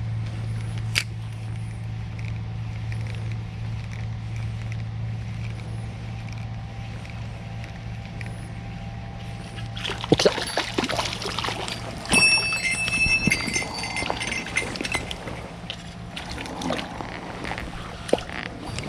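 River water running with a steady low rush. From about ten seconds in come irregular splashing and knocking, with brief high whines at times.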